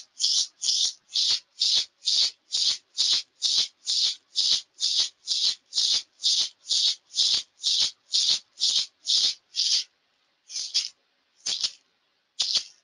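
Hand rattle shaken in a steady beat of about two and a half shakes a second, the rattling used to carry a guided shamanic journey. Near the end it stops, then gives three single shakes about a second apart, marking the close of the journey.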